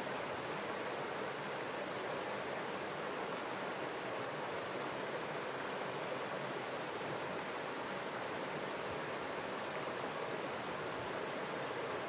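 Running water of a stream: a steady, even rush with no breaks, and faint thin high-pitched tones above it.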